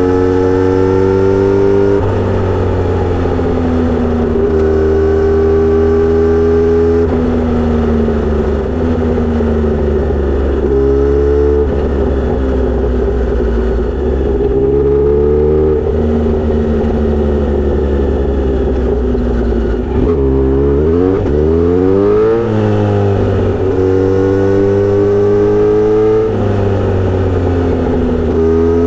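Kawasaki Z900RS inline-four through a Misty Kintaro short-pipe aftermarket muffler with a 70 mm silencer, heard while riding. The pitch climbs under acceleration and drops at each upshift, holds steady while cruising, falls sharply about two-thirds of the way through as the bike slows, then rises again as it pulls away.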